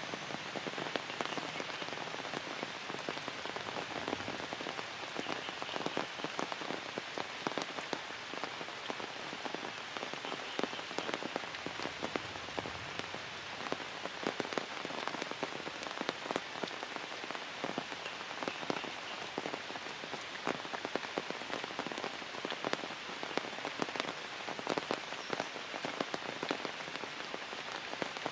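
Steady rain falling through tree foliage, with many individual drops ticking sharply close by.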